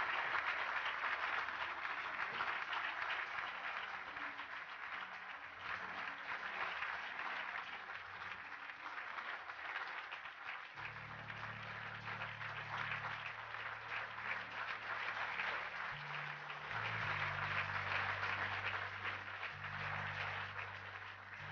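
Audience applauding throughout, swelling again near the end. About halfway through, music with low held notes joins under the clapping.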